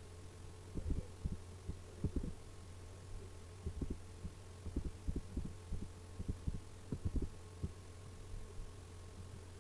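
Steady low electrical hum with a faint higher tone, under about a dozen soft low thumps at irregular intervals, some in quick pairs, from the desk and mouse being handled while drawing.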